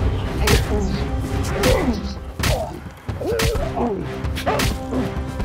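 Staged fight sound effects: about five punch and kick thwacks, roughly a second apart, each followed by pained grunts and groans, over dramatic background music.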